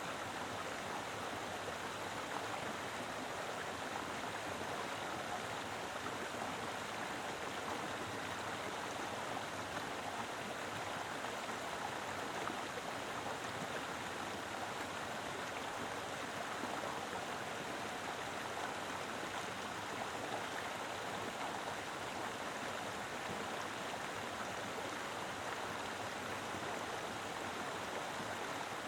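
Mountain river flowing strongly over rocks: a steady, even rush of water.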